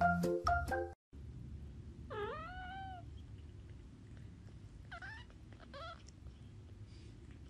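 Kitten mewing: one drawn-out, high mew that dips and then rises about two seconds in, then two shorter mews around five to six seconds, over a steady low hum. Piano-like music plays for the first second and cuts off.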